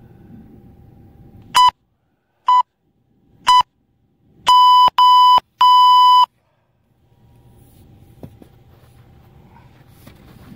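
Interval timer beeping a countdown at one steady pitch: three short beeps about a second apart, then three longer beeps in quick succession. This marks the end of a Tabata work interval.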